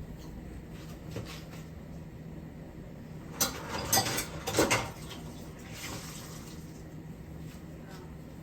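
Dishes and metal utensils clattering in a short flurry of sharp knocks a few seconds in, over a steady low hum.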